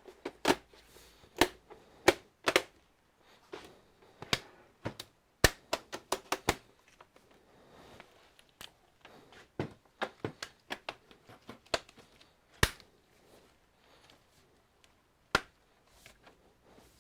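Irregular sharp clicks and knocks of hard plastic and metal parts being handled and set down while an all-in-one computer is worked on. They come thick in the first six seconds or so and then more sparsely, with a louder knock about twelve seconds in.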